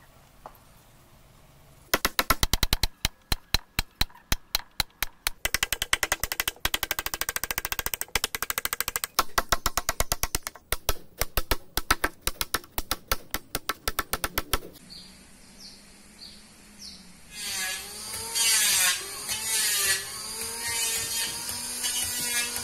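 A steel chisel driven by quick, steady hammer blows, cutting a notch into a hardwood beam, several strikes a second. The strikes begin about two seconds in and stop about two-thirds of the way through, after which a pitched sound wavering up and down over a hiss takes over.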